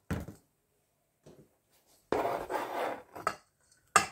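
Potato masher mashing soft cheese in a stainless steel bowl: several short scraping strokes against the metal, the longest about two seconds in.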